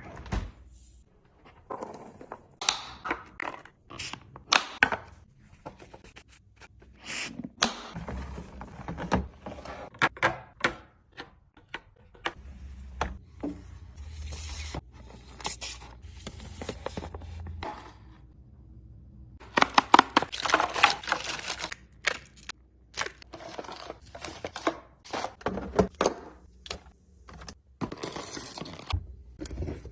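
Fridge-restocking handling sounds: a steady string of clicks, knocks and scrapes as containers and packages are picked up and set down, with stretches of rustling packaging.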